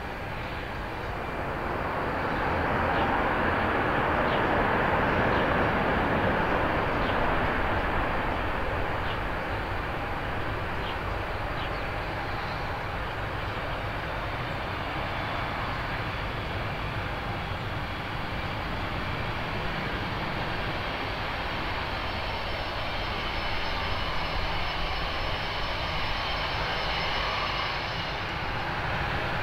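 Airbus A320 jet engines on the landing rollout on a wet runway: the noise swells a couple of seconds in and peaks under reverse thrust, throwing spray off the runway. It then settles to a steady engine whine with a faint high whistle as the airliner slows.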